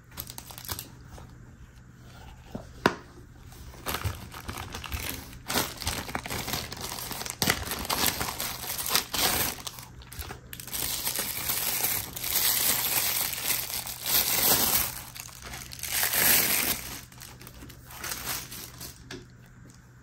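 Thin clear plastic packaging crinkling and rustling in irregular bursts as sunglasses are unwrapped from a plastic bag, with a few light clicks.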